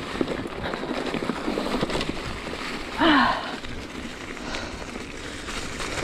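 Mountain bike riding downhill on a forest trail: a steady rumble of tyres over dirt, with many small clicks and knocks from the bike. About three seconds in, a short louder sound with a falling pitch cuts through.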